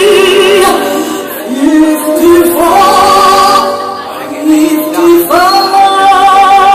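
Music with a woman singing long held notes with vibrato over accompaniment, new phrases entering about two and a half seconds and five seconds in.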